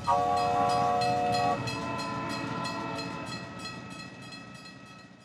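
A train horn sounds a held chord that ends about a second and a half in, over the rhythmic clickety-clack of train wheels on the rails, about four clicks a second. The clatter fades away and stops at the end.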